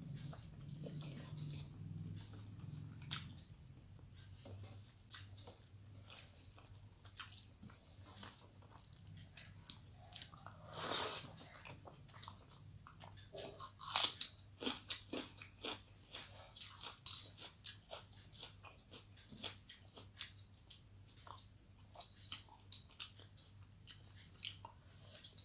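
Close-up eating sounds of a person eating rice by hand: chewing and wet mouth smacks, with fingers mixing and squeezing rice on a steel plate. The clicks come irregularly, with a louder run of smacks around fourteen seconds in.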